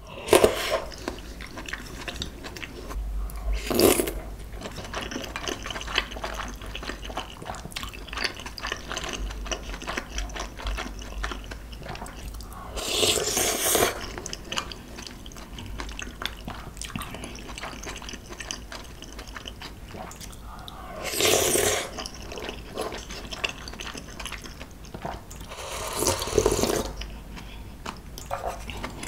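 Close-up wet chewing and slurping of clam noodle soup, eaten from a spoon and chopsticks, with four louder slurps of noodles and broth about four, thirteen, twenty-one and twenty-six seconds in.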